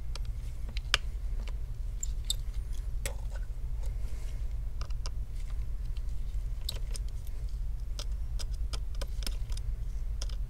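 Scattered small metallic clicks and ticks as a precision screwdriver works out and sets down the tiny screws holding an iPhone X's display connector bracket, over a steady low hum.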